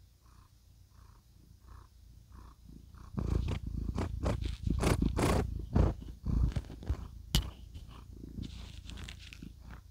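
Domestic cat purring softly in a slow pulsing rhythm right at a clip-on microphone. From about three seconds in the cat nuzzles and paws the microphone, giving loud irregular rubbing, scraping and clicking handling noise, with one sharp knock near the end.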